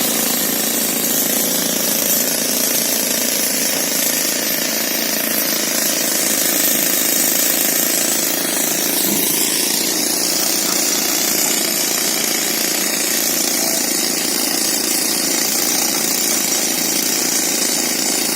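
Pneumatic rock drill hammering steadily into hard rock, a continuous rapid percussive rattle.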